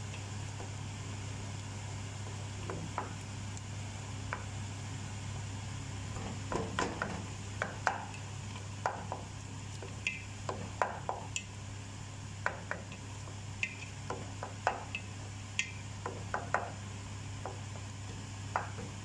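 Wooden spatula stirring thick tomato sauce in a non-stick pot, knocking and scraping against the pot in short, irregular clicks, more often after the first few seconds. A steady low hum runs underneath.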